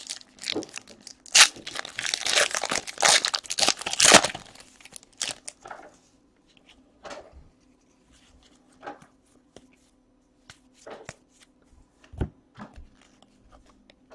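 Wrapper of a basketball trading card pack being torn open and crinkled, loudest in the first four seconds or so. It is followed by quieter, scattered flicks and taps as the cards are handled one by one.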